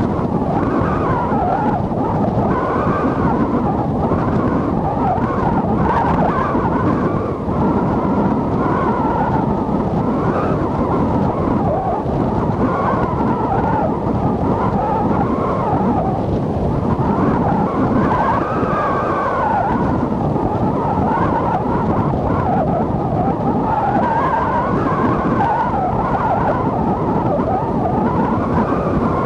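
Strong gale wind blowing over the sea with surf breaking on the beach, a dense steady rush of noise. A faint whistle wavers up and down in pitch throughout.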